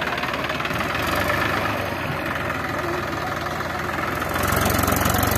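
Diesel tractor engine running steadily, then revved louder about four seconds in as the stuck tractor works to pull out of the mud.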